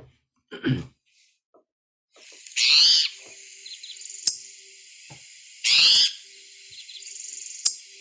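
Recording of a spotted towhee giving its raspy, mewing call, like a cat with a sore throat, twice, each call about half a second long, over steady hiss. Two sharp clicks fall between and after the calls.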